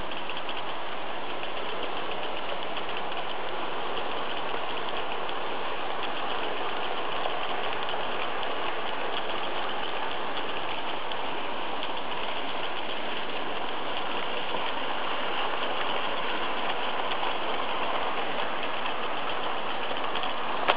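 Märklin model trains running on the layout track: a steady, even whirr and rattle of small motors and wheels on the rails.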